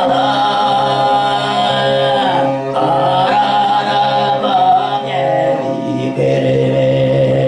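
Male Tuvan throat singing: long-held low notes with a strong overtone sounding above them, in about three phrases with short breaks, to the accompaniment of a bowed Tuvan horsehair fiddle.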